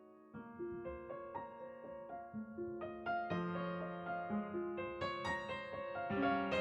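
Piano music: a slow melody of struck notes and chords, growing gradually louder.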